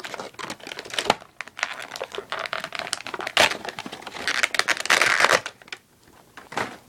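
Plastic and cardboard toy packaging crinkling and rustling in irregular bursts with sharp clicks as an action figure is unboxed, easing off near the end.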